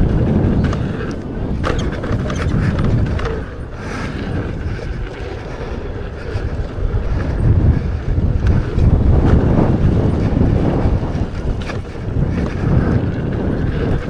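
Wind buffeting the microphone of a rider going fast on an electric unicycle down a dirt trail. The low rumble swells and fades, with a few short knocks from the ride.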